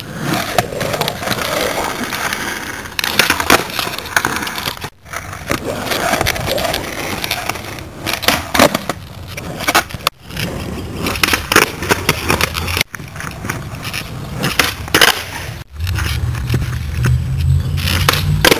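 Skateboard wheels rolling over rough asphalt, with sharp clacks of the board popping and landing during flat-ground flip tricks. The sound breaks off abruptly several times where short clips are cut together.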